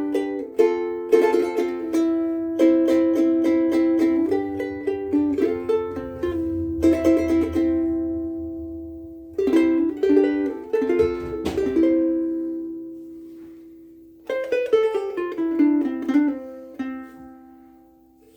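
Soprano ukulele strung with Aquila Sugar strings being played, chords and picked notes ringing out and dying away between short phrases, with a long fade near the end.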